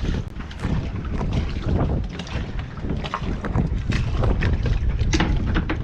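Wind buffeting the microphone in a steady low rumble, with irregular short sharp knocks and splashes.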